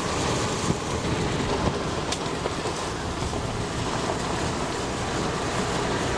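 Steady wind and road noise from a car driving at speed, air rushing over the microphone at the side window, with a brief click about two seconds in.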